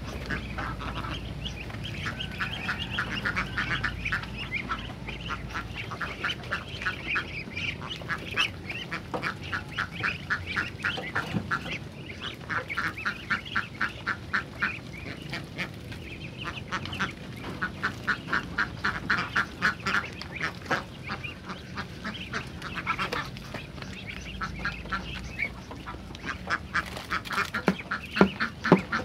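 A flock of domestic ducks quacking in fast runs of repeated calls, several birds overlapping. A few sharp knocks near the end.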